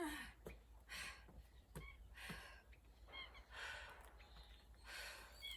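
A woman breathing hard during a bodyweight workout, a heavy breath roughly once a second. Short bird chirps come through a few times in the background.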